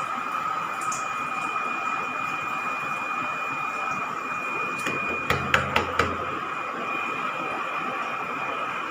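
Steady machine whine over a hiss, with four sharp knocks in quick succession a little past the middle.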